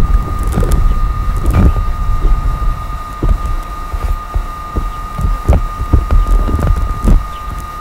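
Wind buffeting an outdoor microphone in a gusty low rumble, with a steady thin high tone throughout and a few dull bumps every second or two.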